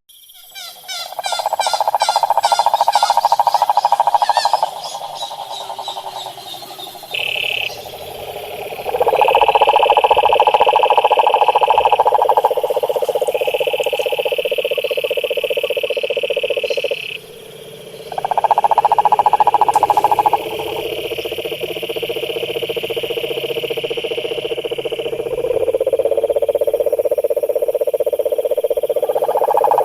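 Frogs calling in long trills that each last several seconds, several callers overlapping at different pitches.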